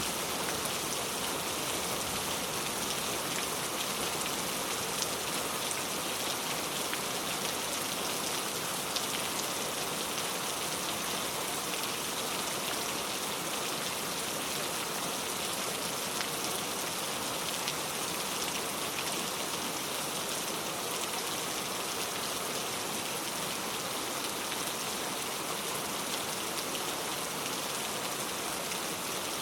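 Heavy rain falling steadily and tapping on a leaf-covered road, a dense even hiss of many drops with an occasional louder single drop.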